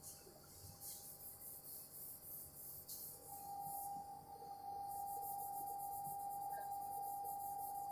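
Quiet room tone with a faint, steady high-pitched whine that grows a little louder about three seconds in, over a soft hiss.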